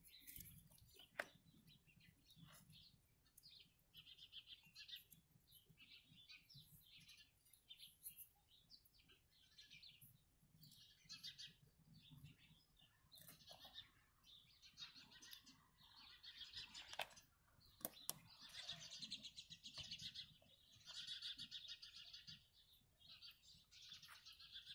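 Faint small birds chirping, the calls coming more often in the second half, with a few small sharp clicks.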